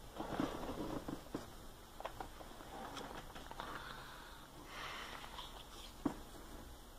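Paper stickers being shuffled and handled: soft rustling in patches, with a few light clicks.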